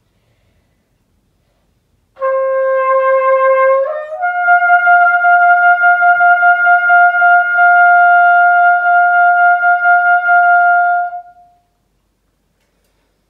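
Unaccompanied cornet playing the closing notes of a solo piece: after about two seconds of silence, one note held for nearly two seconds, then a step up to a long held note with a slight vibrato that lasts about seven seconds and fades away.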